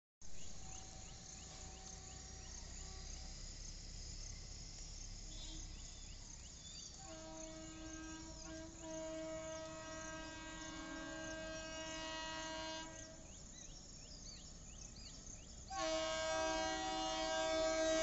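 Horn of an approaching WAP7 electric locomotive sounding long blasts: a faint note near the start, a blast of about six seconds in the middle, then a louder one starting near the end as the train draws closer. Birds chirp throughout.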